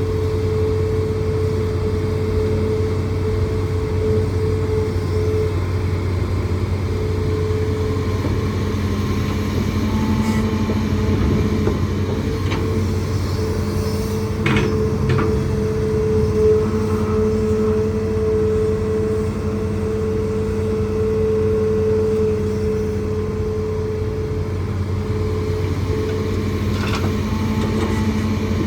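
Hitachi ZAXIS200 hydraulic excavator's diesel engine running steadily under load, with a steady hydraulic whine over the engine hum. A few sharp knocks, the loudest about halfway through and another near the end.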